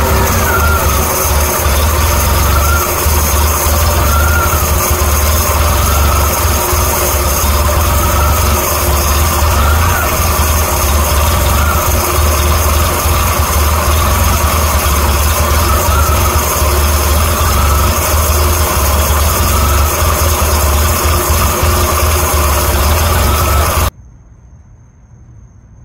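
A Kia Towner mini truck's small three-cylinder engine idling, fitted with the earlier carburetor that was giving it running problems. A faint tone rises and falls every second or two over the steady engine sound. The engine sound cuts off suddenly near the end, leaving crickets faintly behind.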